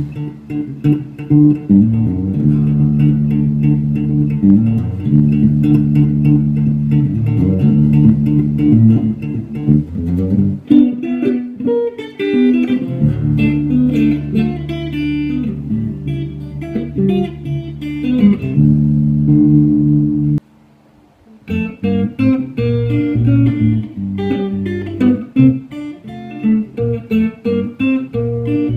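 A newly built handmade electric guitar, the 'Gazelle', played in a melodic picked passage of held low notes and quicker higher notes, with a short break a little past two-thirds of the way through.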